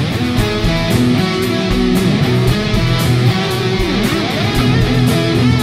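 Background music: a guitar-led instrumental over a steady beat, with sliding guitar notes about three to four seconds in.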